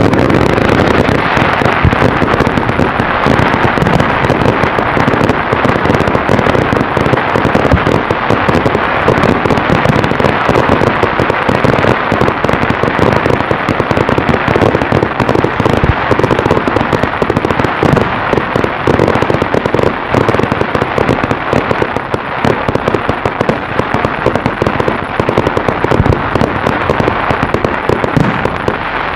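Fireworks display with shells up to 3-inch calibre: a dense, unbroken barrage of rapid bangs and crackling that starts suddenly and drops away right at the end.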